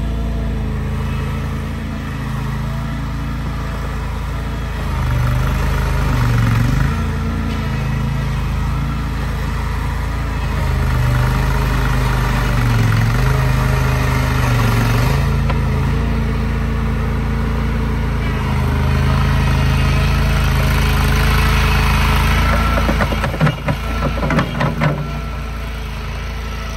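An engine running steadily, its level and pitch shifting every few seconds as if working under load, with a few sharp knocks near the end.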